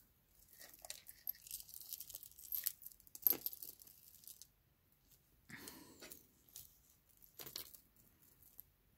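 Faint clinking and rustling of costume jewelry being handled, metal chains and pieces jingling against each other as a tangled clump is picked through. It is busiest in the first half, then two brief rustles follow.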